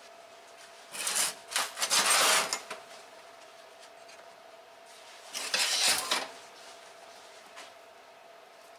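Hybrid Volvo 460/850 pedal box being worked by hand on a steel bench: metal parts scraping and rubbing in three bursts, about a second in, around two seconds and near six seconds, as the tack-welded pedal linkage is test-cycled.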